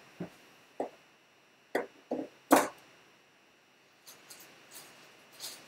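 A series of short knocks and clicks of hard objects being handled, the loudest about two and a half seconds in, followed by a few fainter ticks near the end.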